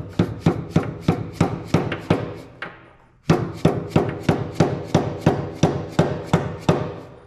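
Mallet lightly tapping a socket held over a new blade seal on a Walker mower's gearbox shaft, driving the seal into its bore. Quick, even taps at about four a second, with a brief pause about two and a half seconds in.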